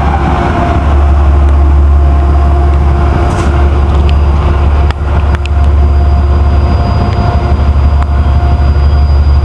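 Metro-North GE Genesis P32AC-DM diesel locomotives at close range in hard rain. A train's rear locomotive passes by while a second train approaches; the engines give a loud, steady low drone over a hiss of noise. A few sharp clicks come about halfway through.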